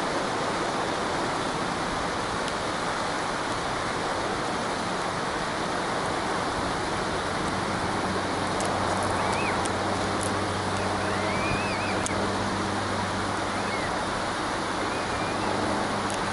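Coastguard search-and-rescue helicopter flying low and circling close by: a steady rushing noise of rotor and turbines, with a low hum that comes in about seven seconds in.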